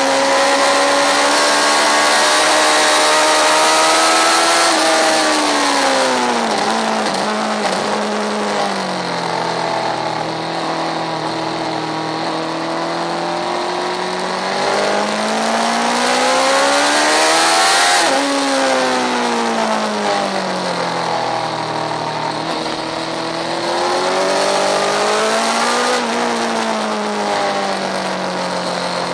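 Sports motorcycle engine with a Scorpion aftermarket silencer, heard close to the exhaust and running hard: the engine note climbs under acceleration and drops sharply under braking and downshifts, about three times, over steady wind rush.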